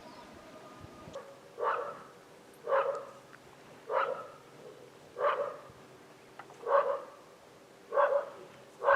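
A dog barking in a steady series, seven barks about a second apart, starting a little after a second in.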